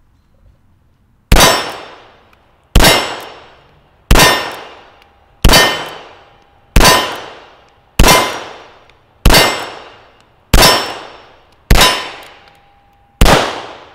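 CZ vz. 38 .380 double-action-only pistol fired ten times at a slow, even pace, about one shot every 1.3 seconds, with steel targets ringing after some hits. The ninth shot has an off tone that the shooter suspects was a weak round.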